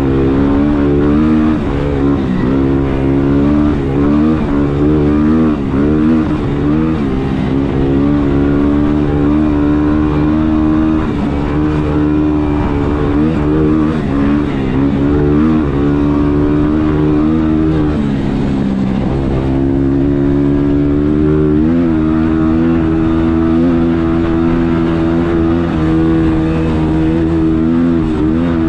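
ATV engine running under way, its pitch rising and dipping again and again as the throttle opens and eases off.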